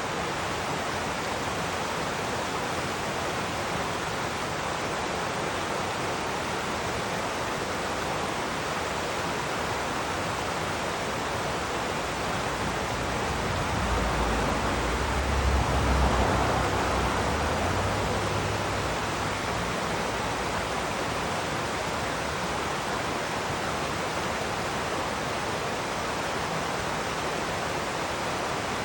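Swift mountain river rushing over rocks, a steady even roar of water. About halfway through, a low rumble swells and fades.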